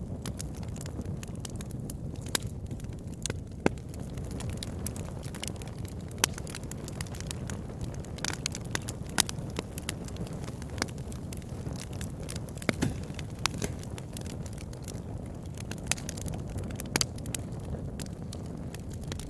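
Campfire burning with a steady low rumble of flames and irregular sharp crackles and pops from the burning wood, a handful of louder pops standing out.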